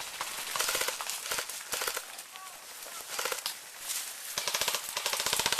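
Airsoft guns firing several rapid full-auto bursts of fast, even clicks, with short pauses between bursts and the longest burst near the end.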